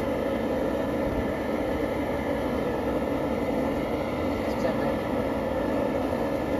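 Propane jet burner running under a large aluminum pot of water being heated to a boil, a steady, even rushing noise.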